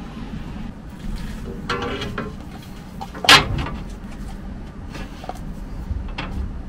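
Sheet-metal skid plate panel being handled and pressed up against the tubular skid frame: scrapes and knocks of metal on metal, the loudest a sharp clank with a short ring about three seconds in.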